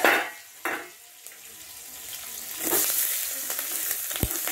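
Pieces of fish roe sizzling as they fry in hot oil in a kadai, with a steel ladle scraping and stirring them in the pan. The sizzle grows louder about three seconds in, and the ladle knocks once against the pan near the end.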